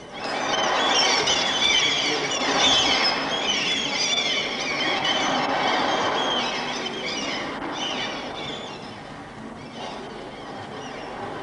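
A flock of seagulls crying, many short wavering calls overlapping, over a steady rushing wash like surf; the calls thin out and fade after about eight seconds.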